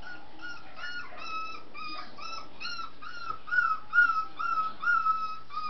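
A Scottish terrier puppy whimpering in a steady series of short, high cries, about two a second, louder in the second half.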